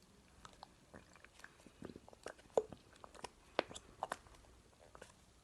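Slime mixture being worked by hand or tool, making irregular sticky clicks and small squelches, with a few sharper ones about two and a half and three and a half seconds in.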